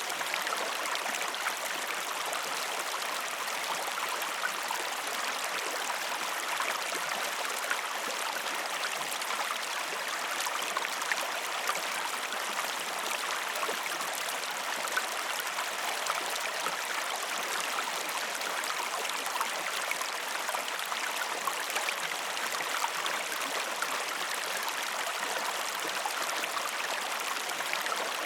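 A river flowing steadily, with a continuous rushing and fine splashing and babbling over the water.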